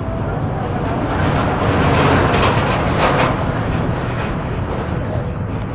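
Volksbus/MAN 17-230 OD city bus under way, a steady low diesel rumble with road noise, and a stretch of rattling and clattering about two to three seconds in.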